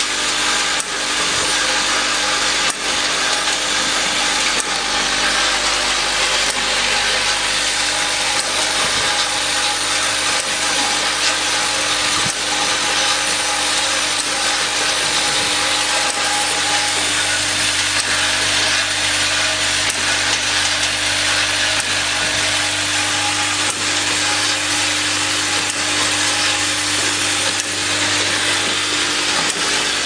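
Vibratory bowl feeders of a filling, plugging and capping machine running steadily: a constant loud mechanical buzz with caps rattling round the spiral tracks, and a steady hum underneath.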